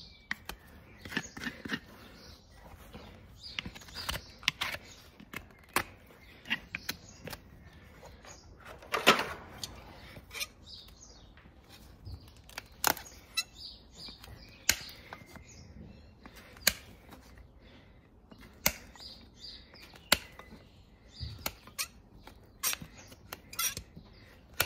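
Hoof knife paring and scraping the hard, dry sole of a horse's hoof: irregular crisp cuts and scrapes, with one longer scrape about nine seconds in.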